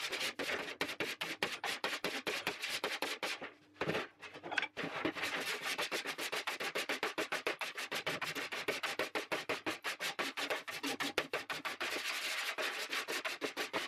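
Adjustable body file rasping over a welded sheet-metal panel in quick back-and-forth strokes, about six a second, with a brief pause about four seconds in. The file is skimming the surface to score it and show up the low spots, not to take metal off.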